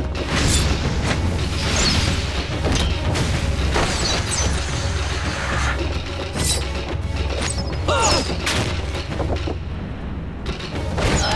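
Dramatic score with a heavy low rumble under a fight, cut through by many sharp impacts and whooshes, the sound effects of thrown knives striking and pinning guards to the walls.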